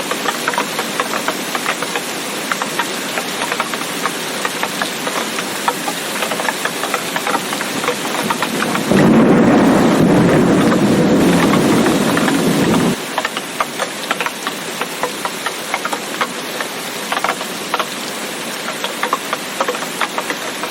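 Steady rain with many small sharp drop hits. About nine seconds in, a low rumble of thunder comes in, louder than the rain, lasts about four seconds and cuts off suddenly.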